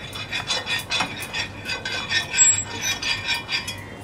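Base of a small steel cup scraping round and round on an iron tawa, spreading oil over the hot griddle in quick regular strokes, about four or five a second, which stop near the end.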